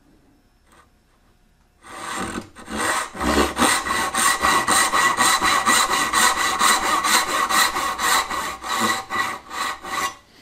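Backsaw cutting down a line in a board held in a bench vise, sawing the pins of a through dovetail joint: quick, even back-and-forth strokes that start about two seconds in and stop just before the end.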